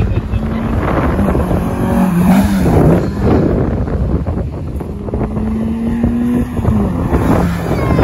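Sprint race cars accelerating past at full throttle, engine note climbing through the revs and dropping at gear changes, about two and six seconds in.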